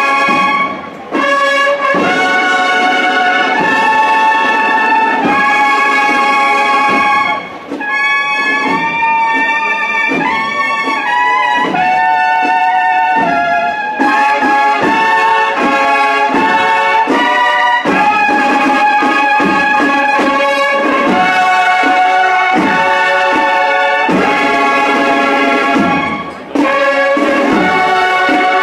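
Brass band playing a march, with held notes in phrases and short breaks about a second in, near eight seconds and near twenty-six seconds.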